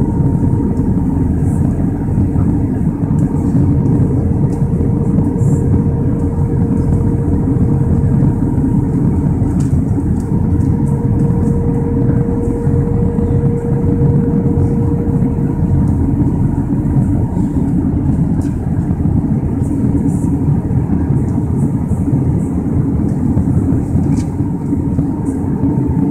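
Steady cabin noise inside an Airbus A320 on approach: a loud, even rush of airflow and jet engines, with a faint steady hum that fades about two-thirds of the way through.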